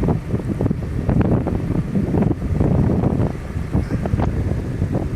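Wind buffeting a phone's microphone held out of a vehicle window in a storm: a loud, steady rumble with crackling gusts.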